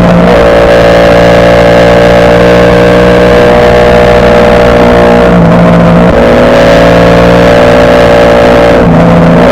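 Ducati Panigale V4 superbike's V4 engine running loud under way, its pitch dipping briefly about three times as it changes gear.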